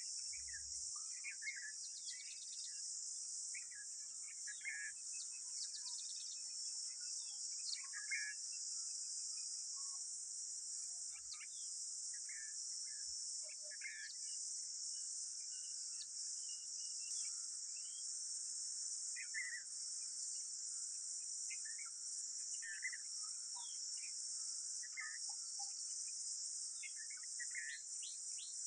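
Steady, high-pitched insect chorus, with short bird chirps and calls scattered through it every second or two.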